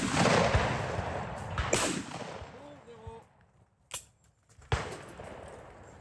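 Shotgun shots at a clay shooting ground: one right at the start and another under two seconds later, each trailing off into echo. Near four seconds comes a short sharp crack, then another shot just before five seconds.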